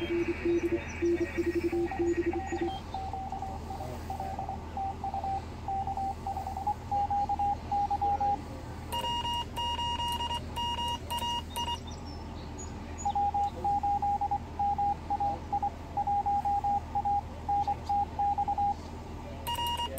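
Morse code (CW) tones from a Yaesu FT-736R amateur radio transceiver: keyed on-off beeps at several pitches. A low tone comes first, then a steadier mid tone, then a higher, buzzier tone around the middle and again at the end, over a steady low hum.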